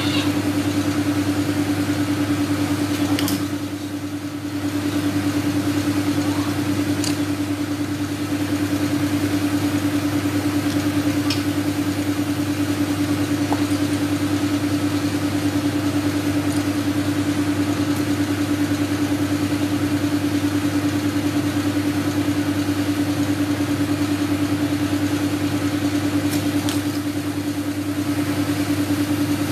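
A machine motor running with a steady, unchanging hum, with a few faint clicks from work at the wheel hub.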